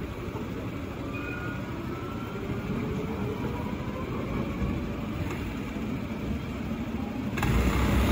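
Electric T9 tram pulling away along its track, a steady rumble of wheels on rail with a faint whine, fading as it goes. Near the end a louder low rumble comes in suddenly.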